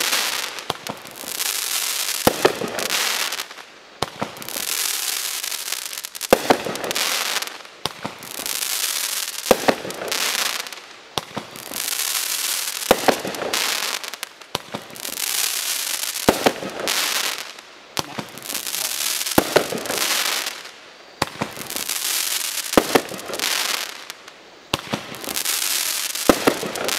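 SkySong Hardball consumer fireworks cake firing its shots one after another, about every three seconds. Each shot is a sharp bang followed by roughly three seconds of hissing crackle from the break, repeated about eight times.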